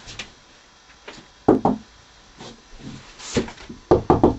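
Knuckles knocking on a room wall in short clusters of two to four raps, with a quick run of raps near the end, sounding out the wall for a hollow spot.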